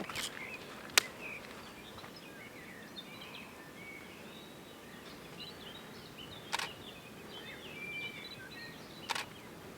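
Small birds chirping and twittering over steady outdoor background noise. A sharp click comes about a second in, and brief rustling noises come twice later on.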